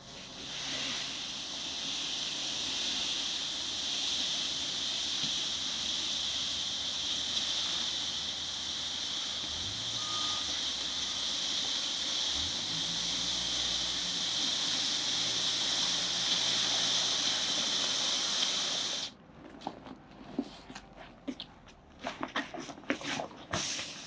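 A loud steady hiss that cuts off abruptly about 19 seconds in. After it stops, irregular crackling rustles of a heavy vinyl tarp being gathered and folded.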